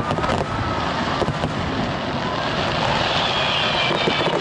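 Fireworks display: a dense barrage of shells bursting, with many sharp cracks over continuous crackling.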